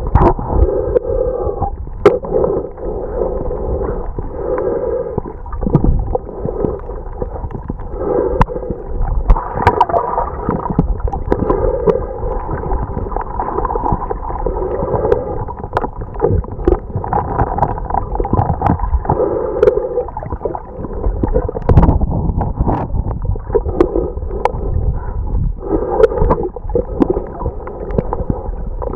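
Underwater sound picked up through a submerged camera: muffled churning and gurgling of water stirred by nearby snorkelers, swelling every couple of seconds, with scattered sharp clicks.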